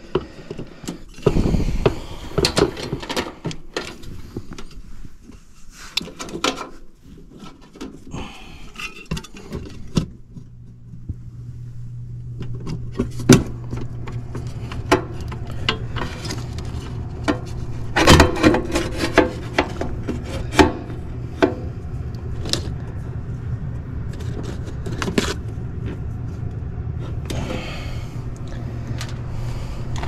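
Hands working on the wiring in an air handler's electrical compartment: scattered clicks, taps and knocks of metal and plastic parts. About a third of the way in, a steady low hum starts and runs on underneath.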